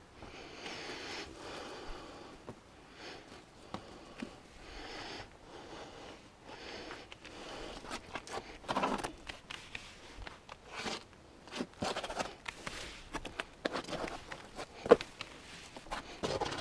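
Irregular scuffs, taps and rustles of a person moving over the rock beside the climbing rope, with a denser stretch of scraping about halfway through and a couple of sharper knocks near the end.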